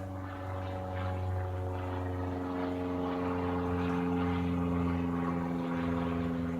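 Single-engine Cessna propeller plane flying low overhead, its piston engine and propeller droning steadily, the pitch sinking slowly as it passes.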